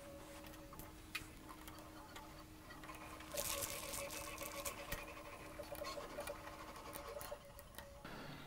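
Faint light clicks and rustling as 3D-printed plastic robot-arm parts and wires are handled on a tabletop, a little busier a few seconds in, over a low steady hum.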